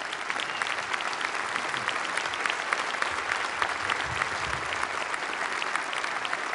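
Large auditorium audience applauding, a dense steady clapping that swells up just before and holds through.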